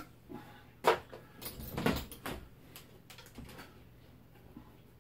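Knocks, clatters and scrapes of a metal ammunition tin being handled and pried at with a screwdriver, the loudest knock about a second in and a cluster around two seconds, then only faint scraping.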